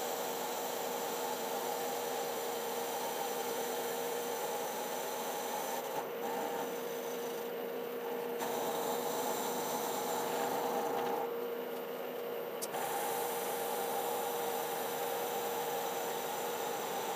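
Milling machine face-milling the top of a cast-iron lathe tailstock: a steady spindle hum with the hiss of the cutter working the iron. The cutting hiss thins briefly two or three times, around six, eight and twelve seconds in.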